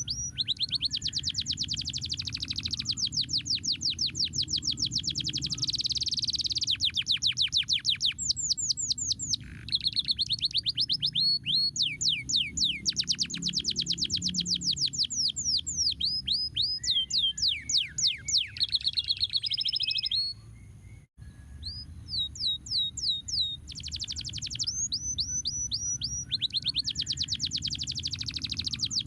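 Domestic canary singing: fast trills of quickly repeated, downward-sweeping high notes, run after run with changes of tempo. The song breaks off briefly about two-thirds of the way through, over a steady low rumble.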